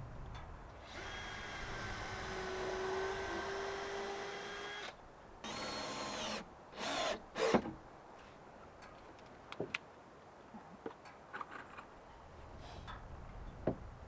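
Power drill driving screws into pallet wood: one steady run of about four seconds, then a shorter burst that speeds up and two brief bursts. Scattered light knocks and clicks of handling follow.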